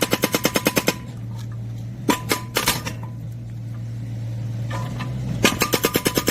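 Mini excavator's hydraulic breaker hammering rapidly into firewood logs, stopping about a second in; the excavator's engine keeps running steadily with a few knocks, and the rapid hammering starts again near the end.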